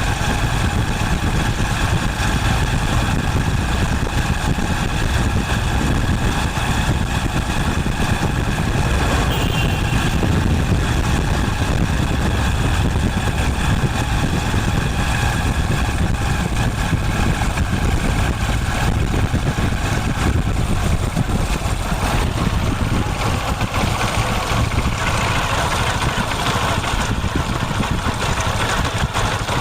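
Motorcycle engine idling steadily after a kick start.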